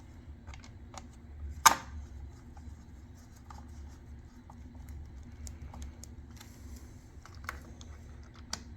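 Small irregular clicks and taps of a screw being fitted and driven with a hand tool, with one sharp click about a second and a half in, over a faint steady hum.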